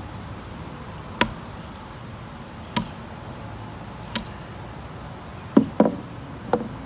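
A claw hammer striking nuts laid on a wooden picnic-bench seat: six sharp knocks, spaced out at first, then three louder blows in quick succession near the end, some with a short woody ring.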